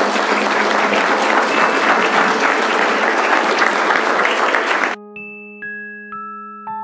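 An audience applauding, cut off abruptly about five seconds in. Then electric-piano notes are struck one after another, about two a second, each fading, over a held low note.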